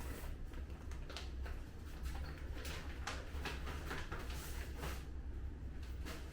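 A packaging bag rustling and crinkling in irregular bursts as it is opened and the clothes inside are handled.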